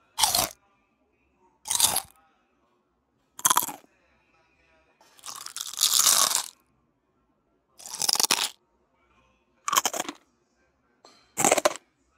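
Close-up crunching of food being bitten and chewed: seven short crunches, roughly one every one and a half to two seconds, with silence between. The fourth crunch is longer.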